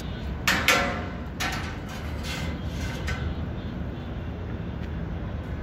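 Metal knocks and clanks from steel pipes being handled on a steel sign-board frame: a sharp clank about half a second in and a few lighter knocks after it. Under them is a steady low wind rumble on the microphone.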